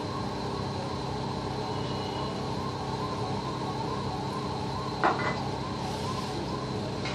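A steady machine drone with a wavering tone that rises and falls a couple of times a second. One sharp knock comes about five seconds in.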